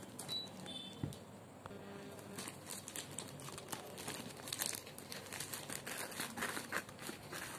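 Plastic courier mailer bag crinkling and crackling as it is handled and cut open with scissors.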